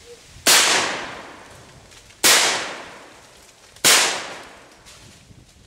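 Three 12-gauge shotgun blasts from a Benelli Super 90, a bit over a second and a half apart, each report trailing off over about a second.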